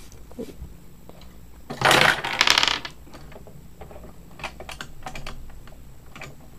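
Lego gumball machine's plastic mechanism turned by its knob after two quarters are put in: a loud clattering rattle lasting about a second, about two seconds in, as the machine releases, then a run of light plastic clicks as the lock resets.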